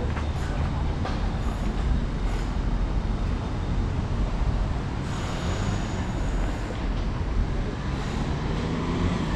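A rail vehicle rolling past with a steady low rumble. A thin, high wheel squeal comes in about five seconds in.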